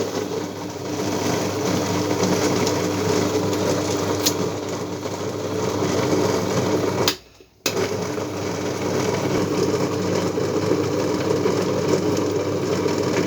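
Electric blender running steadily, blending lemons, an orange with its peel, water and sugar into juice. It cuts out for about half a second around seven seconds in, then runs on.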